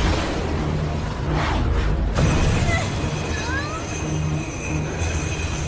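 Cartoon magic-spell sound effects: a rushing whoosh of an energy blast about one and a half seconds in, over rhythmic action music with a steady bass pulse.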